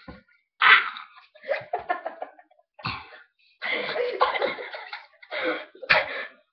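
Coughing and spluttering from people with mouthfuls of dry flour, in several sudden bursts.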